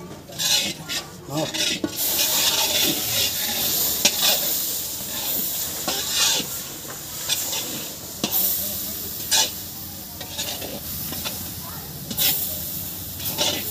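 A metal spatula scraping and stirring coconut powder in a large iron kadhai, in sharp strokes. About two seconds in, a steady sizzle sets in as milk is poured into the hot ghee-roasted coconut.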